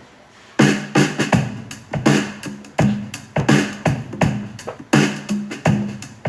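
Background electronic music with a drum-machine beat, which comes in about half a second in after a brief gap.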